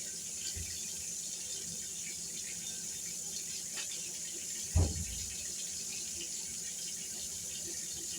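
One dull thump about five seconds in over a steady faint hiss.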